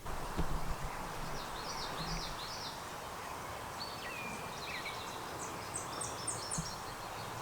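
Small songbirds singing short phrases of quick, high, repeated notes, one run early on and a higher run about six seconds in, over a steady hiss of background noise. There are a few low knocks near the start.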